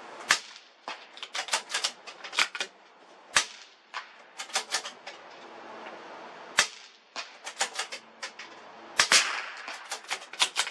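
.22 LR rifle shots: four sharp cracks about three seconds apart, with runs of lighter pops and clicks between them.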